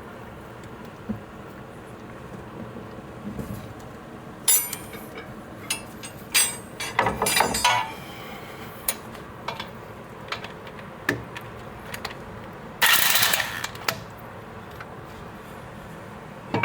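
Metal tools and brake hardware clinking and knocking during a front brake job, with three louder bursts of up to about a second each, the loudest about 13 seconds in.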